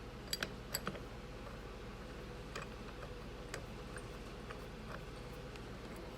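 A few scattered light metallic clicks and ticks as long through-bolts are slid into a Delco Remy generator body, several close together in the first second, over a steady low hum.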